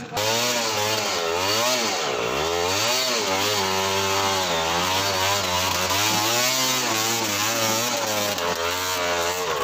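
A dirt bike's engine revving hard and repeatedly up and down as the rider works it up a steep, muddy rut, the revs rising and falling about once a second.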